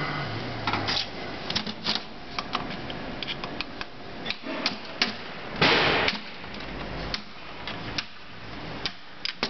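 Irregular sharp clicks and light knocks of tools and parts being handled, with a short louder noisy burst about six seconds in.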